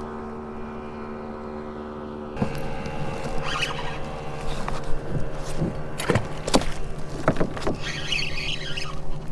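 A fishing reel's drag squealing in short bursts as a hooked fish pulls line, with sharp clicks and knocks in between. A steady hum comes first and gives way to this about two seconds in.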